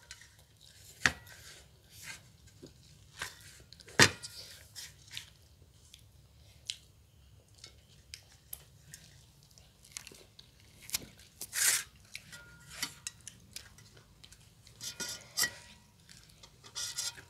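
Scattered clinks and scrapes of fingers and food against stainless-steel plates and small steel bowls during a meal eaten by hand, a few with a brief metallic ring, with chewing in between.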